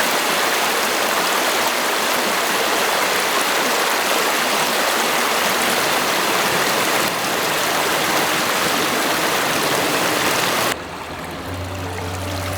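Rushing river water, a loud, even flow close to the microphone. About eleven seconds in it cuts to a quieter flow, and soft background music with held notes comes in.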